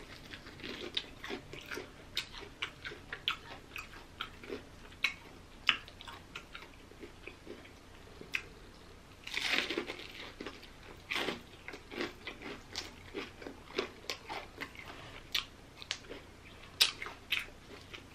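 Close-up sound of a person biting and chewing fried chicken: irregular crunches of the breading and wet mouth sounds, with a louder, denser stretch of crunching about nine seconds in.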